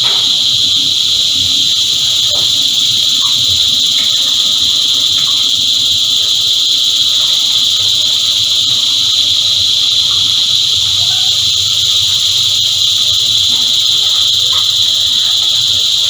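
Chorus of cicadas singing together as one loud, steady, high-pitched drone without a break.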